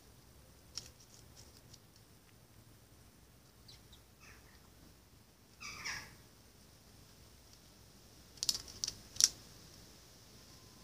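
Jackdaw pecking at seed and peanuts on paving stones: sharp beak taps and clicks, with the loudest cluster about eight to nine seconds in. Midway there is a short bird call that falls in pitch.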